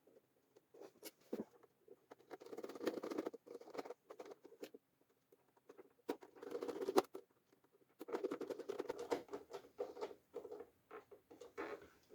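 Small screws being turned by hand into the bird feeder's plastic back end: three spells of rapid scratchy clicking and rasping as each screw is driven.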